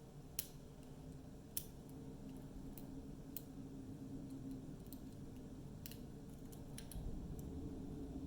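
Hook pick working the pins of an ABUS 72/40 padlock under light tension: faint, scattered small metallic clicks, a few seconds apart, as the pin stacks are lifted.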